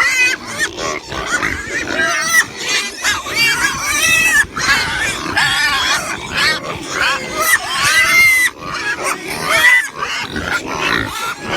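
Pigs squealing, many short high calls overlapping and rising and falling in pitch.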